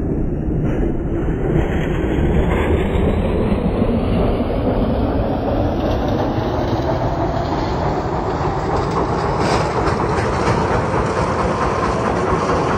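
Concrete mixer running with a steady, loud mechanical rumble as its tilted, turning drum empties concrete into a lift's skip bucket.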